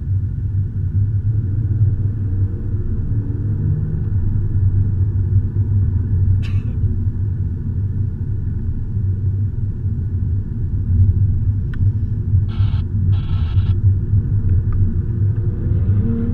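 Car engine and tyre rumble heard from inside the cabin, a steady low drone while cruising. Two short bursts of hiss come near the end.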